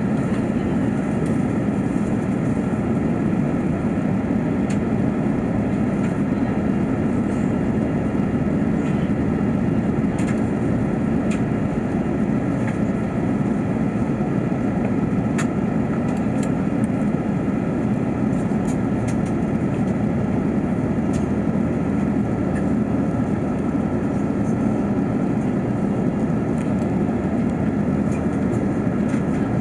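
Steady cabin drone of an Airbus A380 in flight: airflow and engine noise heard from inside the economy cabin, with a few faint clicks.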